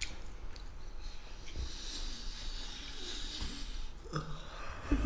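A man sniffing a crab stick held to his nose: one long breath in through the nose lasting about two seconds, as he smells the food.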